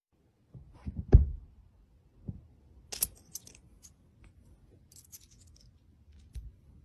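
Dull thumps on an upholstered chair cushion and sharp light clicks as a cat paws at small coins. The loudest thump comes about a second in, and clusters of clicks come around three and five seconds in.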